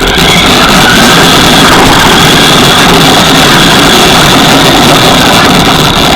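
RC monster truck driving, heard from a camera mounted on the truck itself: a loud, continuous rush of motor, gears and wheels with a steady high whine over it. It starts abruptly and dies away just after the truck stops.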